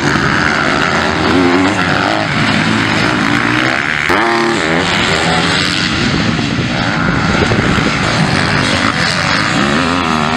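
Motocross bike engines of the 250cc MX2 class running hard around the track, with a loud, steady buzz from several bikes. About four seconds in, one engine revs up and down through the gears.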